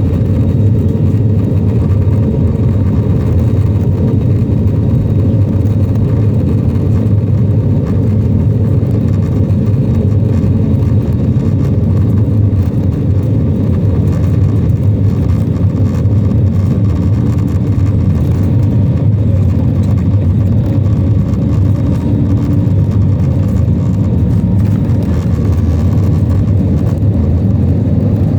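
Airbus A320 engine and airflow noise heard inside the passenger cabin during takeoff: a loud, steady low rumble that holds even throughout.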